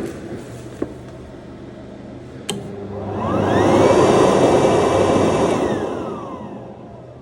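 Electric air pump for an inflatable airbag switching on with a click, whining up to speed, running with a rushing blow of air, then winding down with a falling whine. It is running on a newly fitted relay, which has cured its failure to start.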